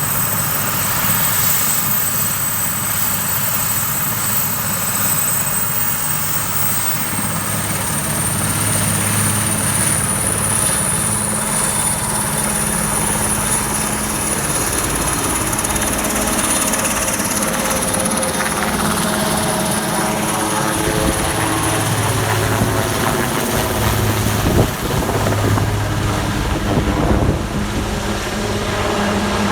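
Federal police helicopter running close by: a loud, steady rotor and turbine noise with a high whine that rises slightly about eight seconds in. There is a single sharp knock near the end.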